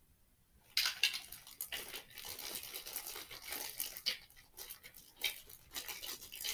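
Hands rummaging out of sight for a toy foam letter: continuous rustling and crinkling with small clicks, starting about a second in.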